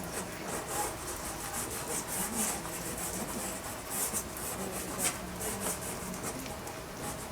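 Dry pastel sticks scraping and rubbing across pastel paper primed with a gritty pastel ground, in short repeated strokes at an uneven pace.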